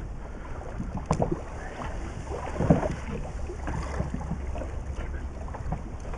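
Water slapping against an inflatable boat's hull and wind buffeting the microphone, under a steady low rumble, with scattered clicks and knocks as a fishing reel is wound against a fish. A sharp click comes about a second in and the loudest knock a little before three seconds in.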